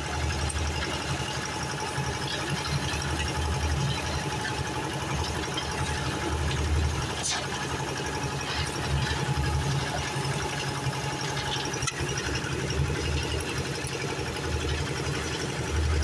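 Engine of a portable concrete mixer with a loading hopper running steadily, with a low throb that swells and fades every second or so.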